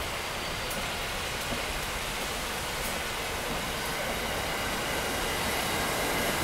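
Amtrak Keystone Service passenger cars rolling past as the train pulls out, a steady rush of wheel and rail noise that slowly grows louder. A faint high whine comes in during the second half.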